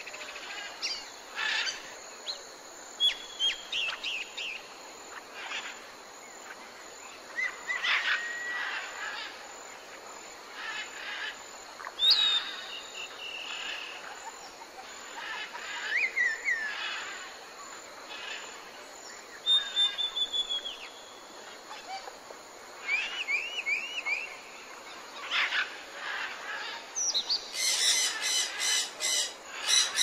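Several wild birds singing and calling at intervals, mostly short whistles and gliding notes, over a steady background hiss. Near the end comes a loud, fast series of repeated calls.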